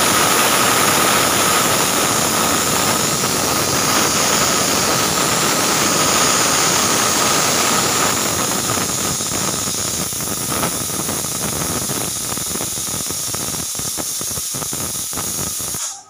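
Pressure cooker whistling: steam blasts out past the lifted weight valve in a loud hiss with a steady whistle tone. It sputters more in the second half and cuts off suddenly near the end.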